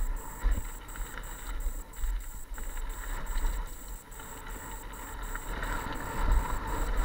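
Mountain bike rolling down a loose gravel trail, heard through a helmet-mounted camera: tyre and trail noise with small rattles and clicks, and wind buffeting the microphone in uneven low gusts.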